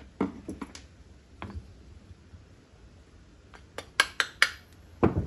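Small metal clicks and clinks of carburetor parts, screws and a screwdriver being handled during a Keihin jet ski carburetor teardown: a few light clicks in the first second, a quick run of four or five sharper clicks about four seconds in, and a duller knock near the end.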